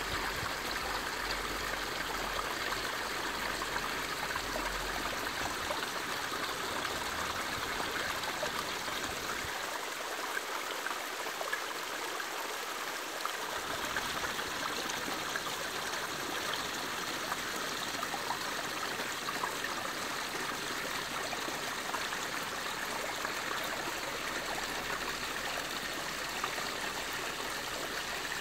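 Water from a small floating pond fountain splashing steadily onto the pond surface, a continuous even trickling.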